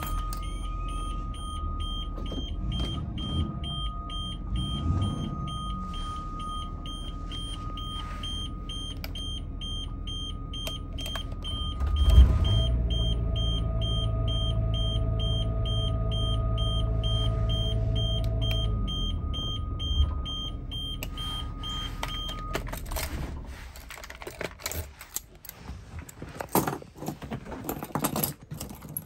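A motorhome's 300 hp Cummins turbo diesel runs with a dashboard warning chime beeping rapidly and steadily. The engine gets louder about 12 seconds in and drops back about 20 seconds in, then the engine and chime cut out together about 22 seconds in. A ring of keys then jangles as it is pulled from the ignition and set down.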